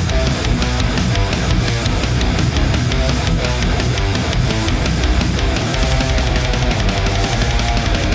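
Distorted electric guitar riffing through a Peavey 5150 signature amp on its crunch channel with no boost pedal, heard through a loadbox and a Mesa 4x12 cabinet impulse response. Playing is fast and continuous, with no breaks.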